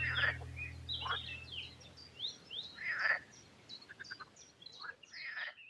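Several songbirds singing and calling, with quick chirps, short sweeping whistles and rapid trills. The last low notes of the background music fade out during the first two seconds.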